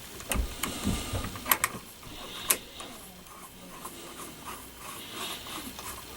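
Small metal parts of a reloading press's powder-drop assembly clicking and clinking as they are handled and fitted by hand, with a few sharp clicks and light knocks in the first two and a half seconds.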